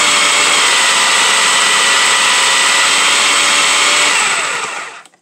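Food processor motor running steadily at full speed, grinding chicken with cream cheese and hot sauce, then spinning down to a stop about four and a half seconds in.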